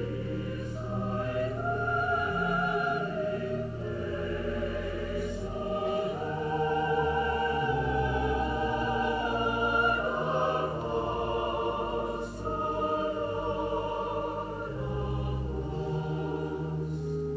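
Choir singing a slow, sustained liturgical piece, with low held notes underneath that change every few seconds.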